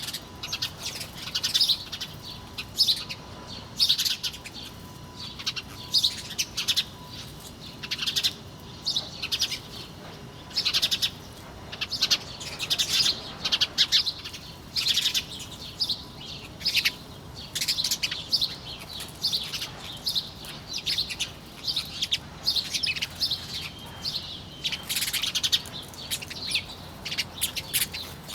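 Many small birds chirping and twittering in quick, overlapping bursts, over a faint steady background hiss.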